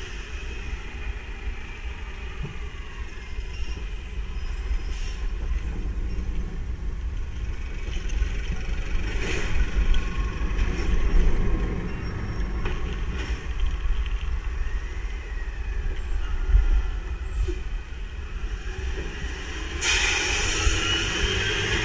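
Natural-gas garbage trucks running in the street: a steady low engine rumble, with short air hisses several times and a longer hiss near the end.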